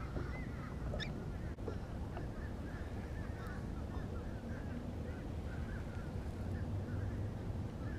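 A flock of birds calling all together, many short overlapping calls over a steady low rumble, with one sharp click about a second in.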